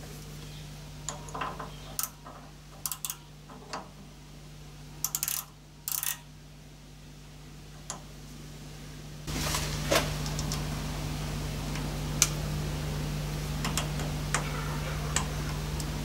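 Light, sharp metallic clicks and clinks of small metal parts or tools being handled, some in quick clusters, over a low hum. About nine seconds in, a louder steady machine hum comes on and keeps going.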